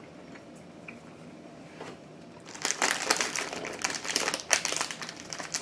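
Plastic candy bag crinkling and rustling as it is handled, starting about halfway through as a dense run of rapid crackles.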